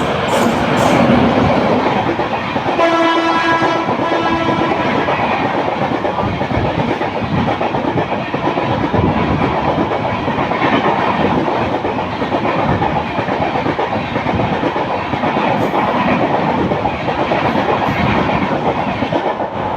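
Express train passing at speed, loud rushing noise with wheels clattering over the rail joints. About three seconds in, the WAP-7 electric locomotive's horn sounds one steady blast for about two seconds.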